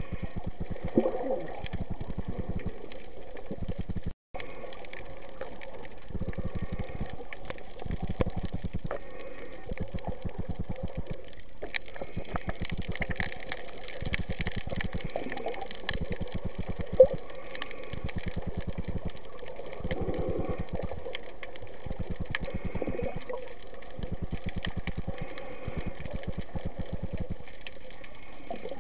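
Muffled underwater sound picked up by a submerged camera: a steady, rapid low pulsing with swishing water over it, cutting out briefly about four seconds in, and one sharp click a little past halfway.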